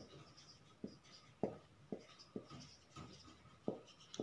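Marker pen writing on a whiteboard: faint strokes with a handful of short, sharp taps as the tip meets the board.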